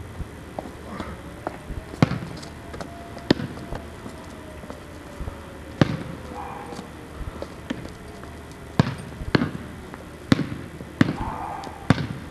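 A basketball bouncing on an asphalt driveway: about eight sharp bounces at an uneven pace, a few seconds apart at first and coming closer together in the second half.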